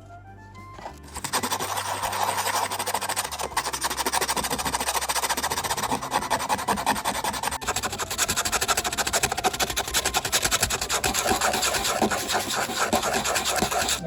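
Rapid, steady rasping strokes against a hard surface, starting about a second in and stopping abruptly at the end, over soft background music.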